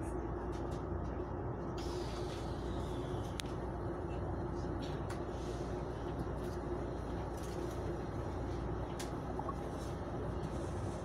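Steady hum and rumble inside a Chu-Kuang Express passenger coach, with scattered light clicks and rattles and a hiss that comes in about two seconds in.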